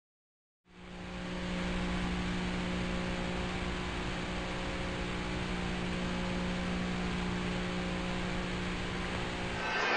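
Steady hiss with a low electrical hum from the soundtrack of old videotape footage, fading in about a second in.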